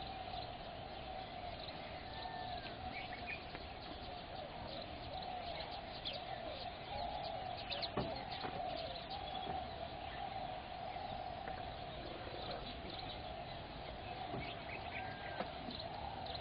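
Wild birds calling: a steady, wavering chorus of calls with short, higher chirps scattered over it, and a single sharp click about halfway through.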